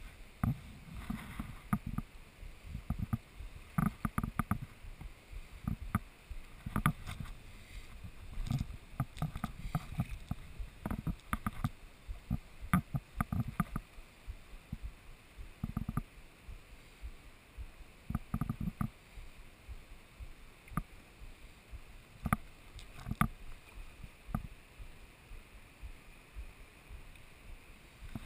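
Uneven low knocks, rubbing and water sloshing close to the microphone, with short sharp clicks now and then, while a fly rod is held bent under the pull of a hooked fish.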